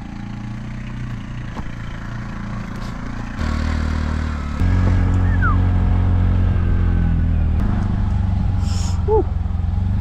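Tuk tuk's small engine running at low speed on a rough dirt track, at first heard from a little way behind, then loud and close from inside the cab after a jump about three to five seconds in.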